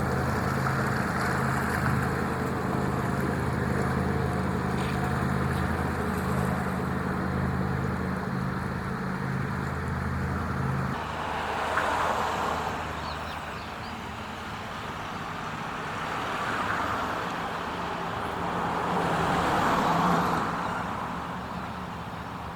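A boat's engine drones steadily, then cuts off abruptly about 11 seconds in. After that, three swells of noise rise and fade, like vehicles passing by.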